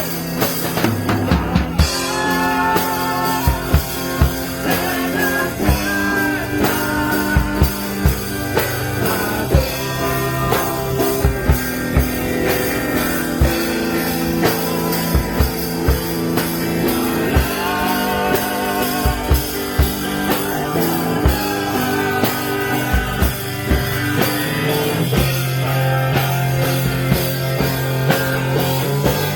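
Live band music: a singer with electric guitar, bass and a drum kit keeping a steady beat.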